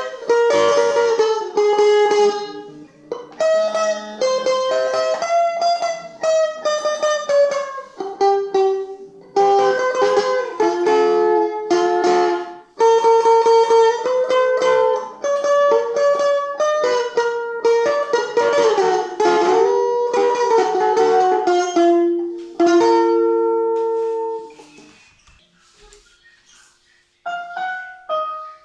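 A plucked string instrument plays a melody in single notes and short phrases, with brief pauses between them. The last held note fades out about 23 seconds in. After a few seconds of near silence, a new passage of notes starts just before the end.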